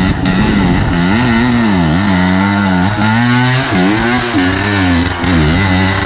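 Dirt bike engine revving up and down, rising and falling about once a second, as the rider works the throttle under load up a steep, slick dirt climb.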